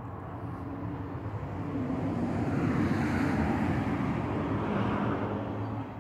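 A passing vehicle: engine and road noise that grows, is loudest for about three seconds in the middle, then fades.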